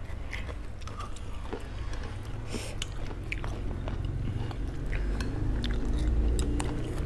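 Chewing and biting of tré trộn, a crunchy Bình Định cured-pork salad, with scattered small clicks over a steady low hum.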